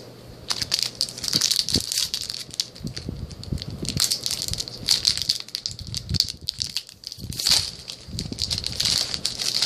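Foil wrapper of a Duel Masters DM-01 trading-card booster pack crinkling and tearing as it is opened: a dense, continuous crackle with louder flurries every second or so.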